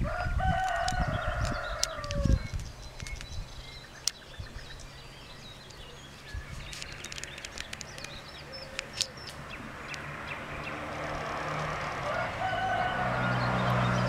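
A rooster crows twice: a long crow at the start that drops in pitch at its close, and a shorter one near the end. Low thumps come with the first crow, and faint scattered clicks and chirps fall in between.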